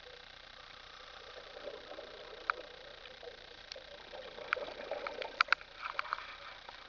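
Muffled underwater sound picked up through a camera housing: a steady low hiss with a series of sharp clicks and ticks, one a little over two seconds in and then a quick cluster of them in the last couple of seconds.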